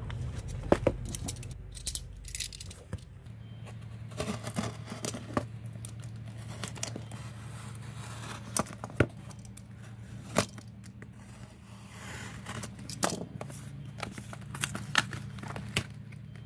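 Irregular sharp clicks and taps with short bursts of scraping and crinkling: small hard phone parts and hand tools handled on a work surface while a broken smartphone is taken apart. A steady low hum runs underneath.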